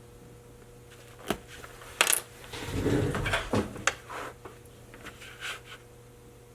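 A few sharp metallic clinks and taps from small metal objects being handled, with a short stretch of rustling about three seconds in.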